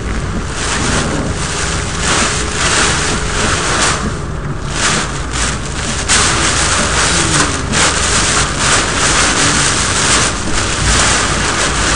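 Heavy rain and wind beating on a moving car, a loud rushing hiss that surges and eases every second or so, with road noise underneath.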